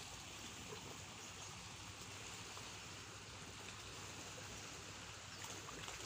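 Faint, steady wash of small waves lapping at the shore of a calm sea on a rising tide, with a few light ticks near the end.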